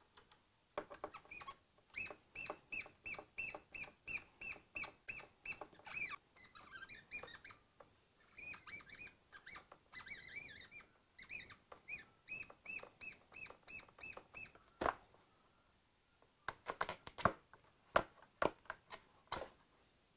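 A bird chirping over and over, about three short high chirps a second, with a more varied warble partway through. Near the end come a few sharp clicks and knocks of parts being handled.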